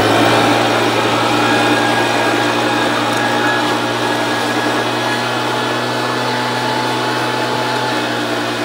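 Backpack leaf blower running at a steady high speed: a constant hum over a rush of air.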